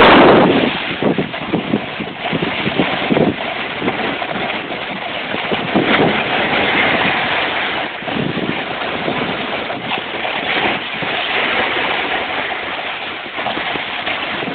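Wind buffeting a hand-held phone's microphone during a snowboard run, mixed with the board's edge scraping and hissing over packed snow in uneven surges. The loudest gust comes right at the start.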